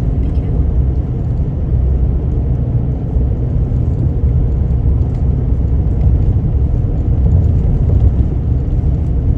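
Four-wheel-drive vehicle driving steadily along an unsealed outback road: a constant low rumble.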